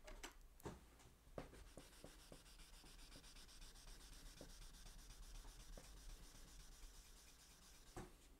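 Super fine wire wool rubbing quickly on a small metal three-jaw lathe chuck, scrubbing off corrosion: a faint, steady scratchy hiss. A few light knocks come as the chuck is handled in the first second or so, and one more near the end.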